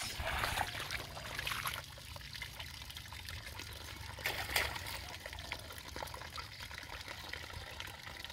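Carabao (water buffalo) urinating: a long, steady stream of liquid trickling and splashing down, with a brief louder splash about four and a half seconds in.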